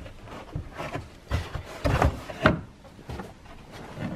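Irregular handling knocks and scuffs as carpeted trunk trim panels and metal seat brackets are moved and fitted, about half a dozen short thuds with the loudest about two seconds in.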